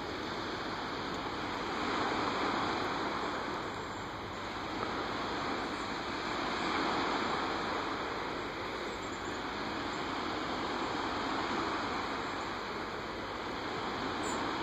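Lake waves washing onto a sandy beach: a steady rushing that swells and eases every four to five seconds.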